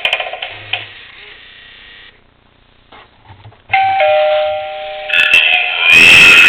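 Gemmy animated eyeball doorbell playing a two-note ding-dong chime through its small speaker, starting about four seconds in. A loud, wavering sound effect from the prop follows near the end, and a loud buzzy effect fades away at the start.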